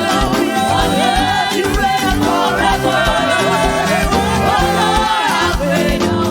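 Live gospel praise and worship music: voices singing a melody together over a band with a steady drum beat.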